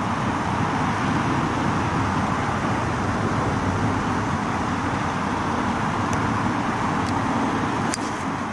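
A steady rumble and hiss of outdoor background noise, with a faint sharp click near the end as a golf driver strikes the ball off the tee.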